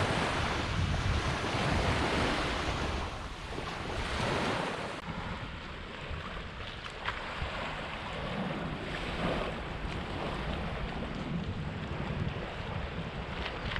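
Sea waves washing onto the shore in slow surges, louder for the first few seconds and then settling, with wind rumbling on the microphone.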